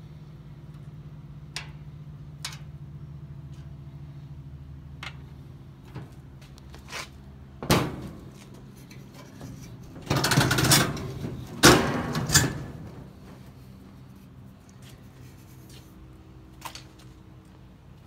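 Scattered clicks and knocks from hands working on a Coyote stainless steel gas grill, with a loud scraping rustle about ten to twelve and a half seconds in.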